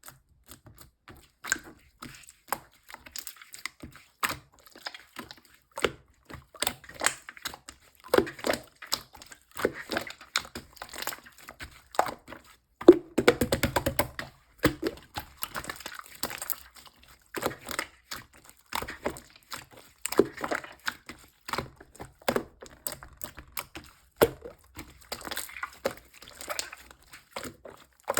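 Konjac jelly slime being squished and pressed by hand, giving many short, irregular wet clicks and pops, with a denser run of crackling around the middle.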